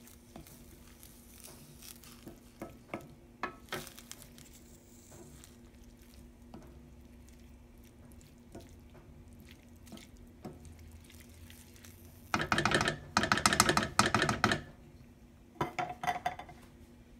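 A wooden spoon stirring corn and diced tomatoes in a stainless steel frying pan, with scattered soft knocks and scrapes against the pan. About twelve seconds in comes a louder two-second spell of rapid scraping and rattling, and then a shorter burst.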